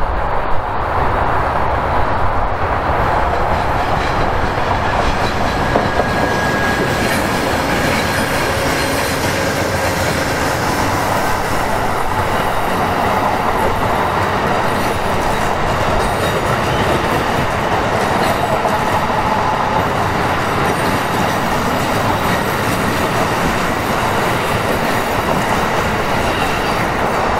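Amtrak California Zephyr passenger train, a diesel locomotive followed by bilevel Superliner cars, passing close by on a curve. The wheels make a loud, steady rumble and clatter on the rails, with a faint high wheel squeal a few seconds in.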